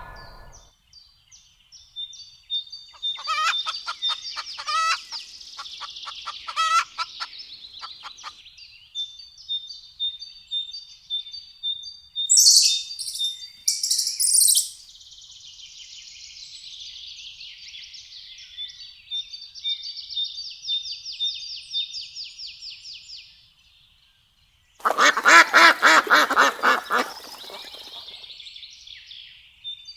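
Birds chirping and calling: high, thin chirps run on throughout, with a run of quick repeated calls a few seconds in and sharp very high calls about halfway. After a brief break, a loud burst of rapid, lower, fuller calls comes about 25 seconds in.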